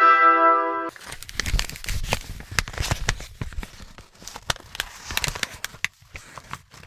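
A brass note cuts off about a second in, then a long run of crinkling and crackling: dense irregular clicks with some low rumble, like something being crumpled, thinning out near the end.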